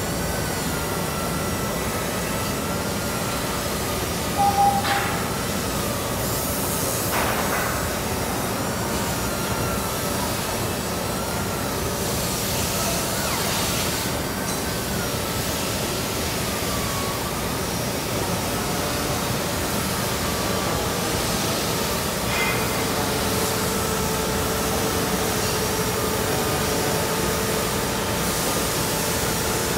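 Factory interior ambience with heavy activity: a dense, steady machinery din under a wavering whine. A short loud tone sounds about four seconds in, a couple of sharp clanks follow, and a steady hum joins about two-thirds of the way through.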